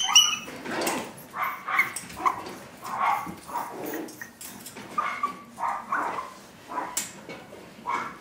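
Chihuahua puppy giving a run of short, high yaps and yips, about one or two a second, opening with a short, sharp high sound as the audio cuts in.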